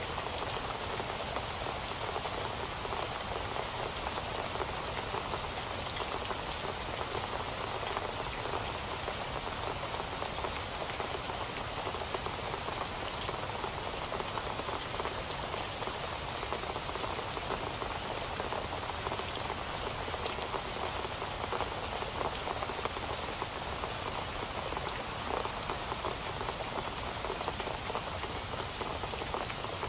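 Steady rain falling, a dense even patter of drops on a hard surface with no let-up.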